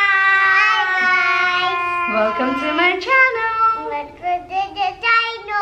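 Young children singing in high voices, holding long drawn-out notes at first, then shorter sung phrases.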